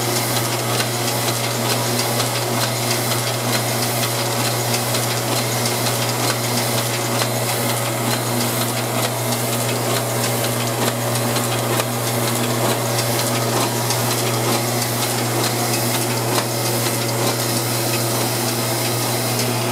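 AM Multi 1450 offset press running with no ink or plates, feeding sheets from the feeder through to the delivery: a steady motor hum under a fast, even mechanical clatter.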